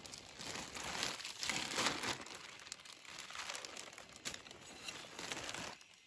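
Plastic bag crinkling and rustling as it is handled and filled, in irregular bursts, loudest about two seconds in.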